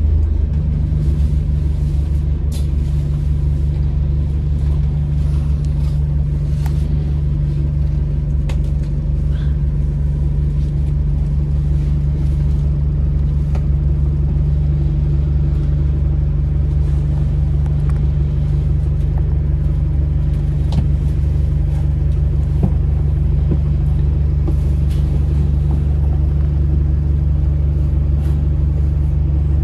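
Inside an Alexander Dennis Enviro400 hybrid MMC double-decker bus on the move: its series-hybrid diesel generator engine drones steadily at one low pitch, with scattered light clicks from the cabin.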